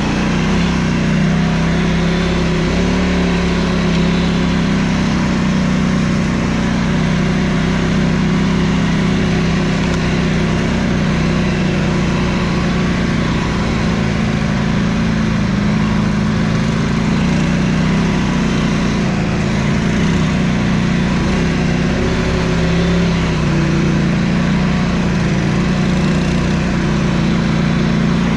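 Quad bike (ATV) engine running steadily under way off-road, its pitch rising and dipping a little with the throttle.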